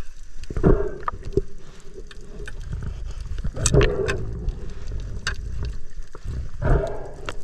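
Muffled underwater sound picked up by a camera in its waterproof housing: water swirling and bubbling, swelling in three surges a few seconds apart, with scattered sharp clicks.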